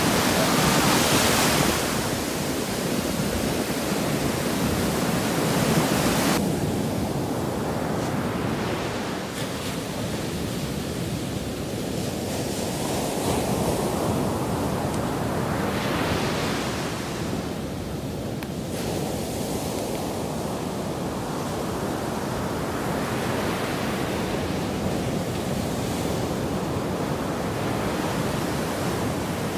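Ocean surf: waves breaking and washing up onto the sand in a continuous rush that swells louder as each wave breaks.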